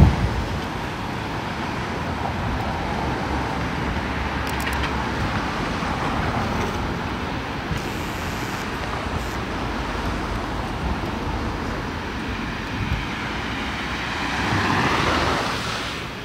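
Road traffic: cars driving past on a city street. One passes close about fourteen seconds in, swelling and fading.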